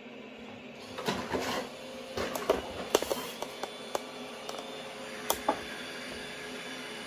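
Roborock S7 MaxV Ultra robot vacuum pulling out of its dock: a steady hum of its running motors, with a quick run of clicks and knocks for a few seconds from about a second in as it moves off the dock.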